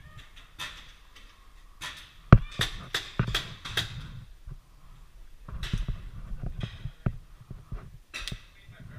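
Paintball gunfire: a scatter of sharp pops, with a quick run of about seven between two and four seconds in, another cluster around six seconds, and single pops after.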